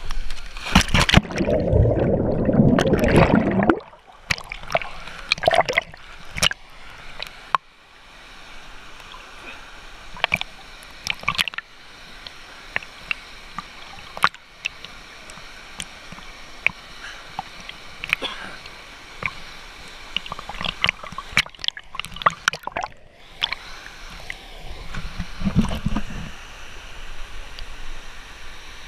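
A person enters the water with the camera: a loud splash and underwater rushing for about three and a half seconds. Then comes water sloshing and lapping right at the camera as he swims at the surface, with many scattered sharp drips and clicks.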